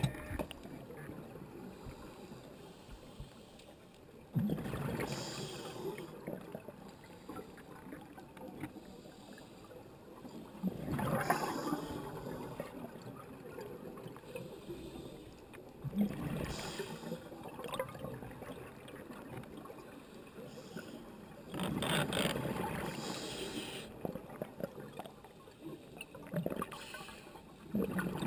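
Scuba diver breathing through a regulator underwater: a gurgling rush of exhaled bubbles roughly every six seconds, five times, with quieter stretches between.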